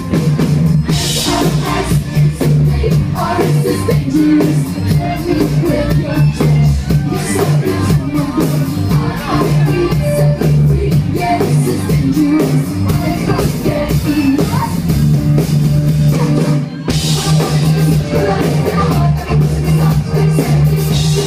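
Live rock band playing loudly, a steady drum beat with strong bass, heard from within the crowd, with a brief break about two-thirds of the way in.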